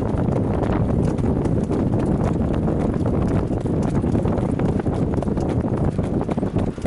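Hooves of a Standardbred trotter beating steadily on the track over a continuous low rumble.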